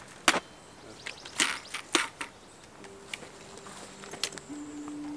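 Hikers walking on a stony dirt trail: an irregular series of sharp clicks and crunches from boots and trekking-pole tips striking stones.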